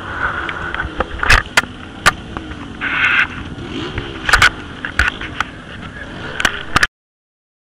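Camera handling noise: repeated knocks, clicks and rubbing of hands and clothing against the microphone, with a motor vehicle engine running in the background. The sound cuts off suddenly near the end as the recording stops.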